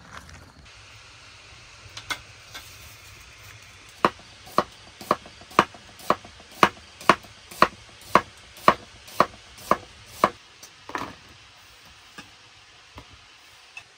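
Knife chopping on a cutting board: about a dozen even, sharp strokes at roughly two a second, with a few scattered knocks before and after.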